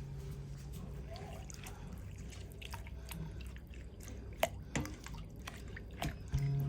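A few scattered light clicks and drips of liquid over a faint hiss, as of liquid and utensils being handled; music comes back in near the end.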